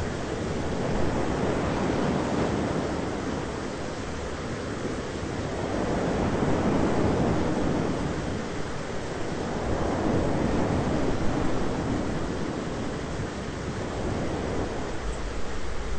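Thunderstorm ambience: a steady low rushing noise that swells and fades about three times, with no sharp thunderclaps.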